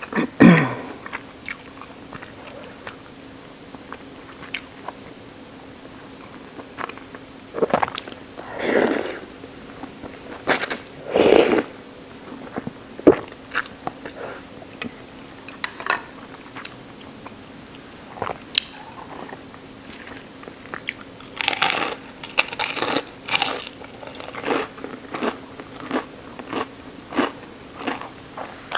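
Close-miked sounds of a person eating ramen noodles in broth: repeated slurps and chewing in several separate bouts, with small clicks between them, over a faint steady hum.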